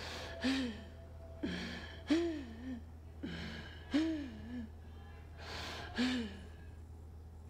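A person's voice in short, breathy gasps, about six of them with pauses between, each with a brief pitch that rises and falls, over a low steady hum.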